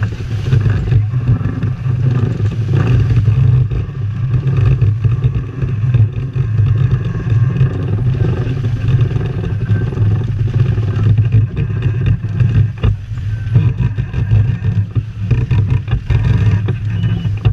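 Strong wind buffeting the microphone in a loud, fluttering rumble, over the rush of water along the hull of a sailboat heeled under sail.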